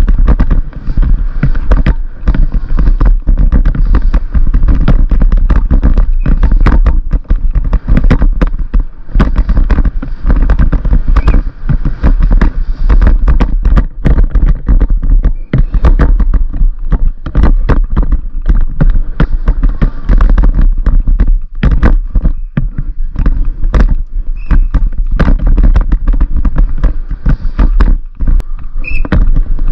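Downhill mountain bike ridden fast over a rough dirt and root trail: a dense, irregular rattle and clatter of knocks from the tyres and bike over the bumps. Under it runs a heavy, steady rumble of wind buffeting a helmet-mounted microphone.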